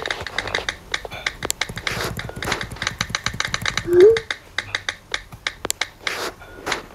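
Typing sound effect: a rapid, uneven run of keystroke clicks, several a second. About four seconds in, a short rising blip tone is the loudest sound.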